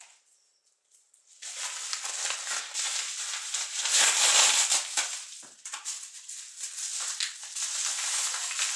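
Packaging being handled and opened: a padded paper mailer crinkling and rustling with many small crackles. It starts after about a second and a half of near quiet and is loudest about four seconds in.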